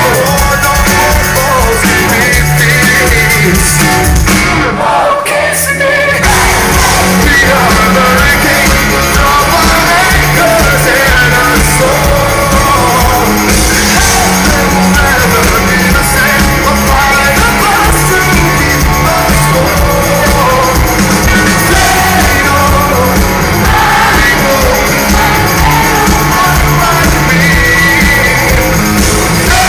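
Rock band playing live with a lead singer, guitars and drums. About five seconds in, the music cuts out for about a second and then the full band comes back in.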